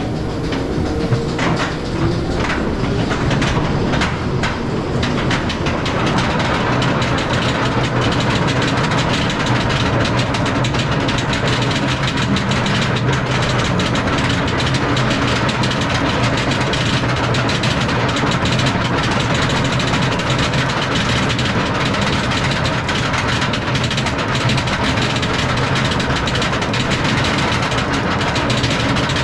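SheiKra dive coaster train being hauled up its chain lift hill: several clicks in the first few seconds, then a steady mechanical rumble with a low hum.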